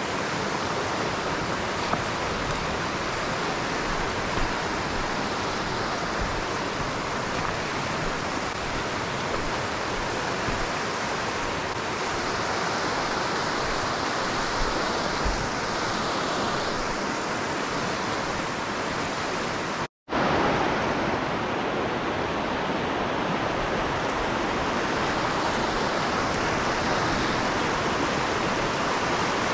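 Small mountain creek rushing steadily over rocks. The sound drops out to silence for a split second about two-thirds of the way through.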